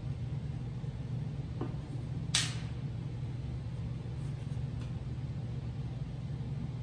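Steady low hum of shop background, with one sharp tap about two seconds in and a couple of faint ticks as rags, tools and a can are handled on a metal-topped workbench.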